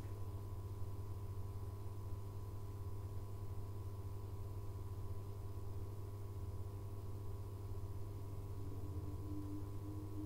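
Steady electrical hum inside a stationary AB900-series electric train: the auxiliary equipment drones low with a few steady higher tones. A faint extra tone joins about eight seconds in.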